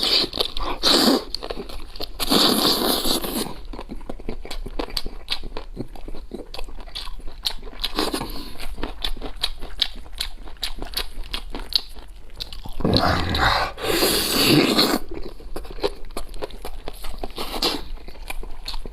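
Close-up eating sounds of braised goat leg being bitten and chewed: steady wet clicks and smacks, with several louder bursts of biting and tearing at the meat.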